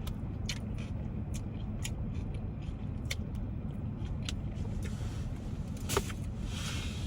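Close-up chewing of a saucy grinder sandwich: wet mouth clicks and smacks, one to two a second, with a louder one about six seconds in, over a steady low hum.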